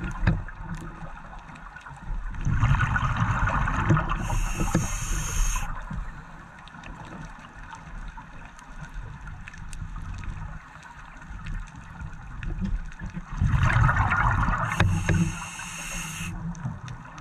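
Scuba diver breathing through a regulator underwater: twice, a bubbling exhalation followed by a sharp-edged hiss of inhalation through the demand valve, the two breaths about eleven seconds apart.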